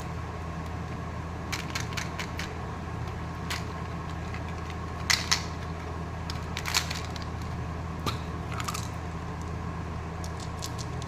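Scattered small plastic clicks and crinkles of candy packaging and toy parts being handled, loudest a pair of sharp snaps about five seconds in, over a steady low hum.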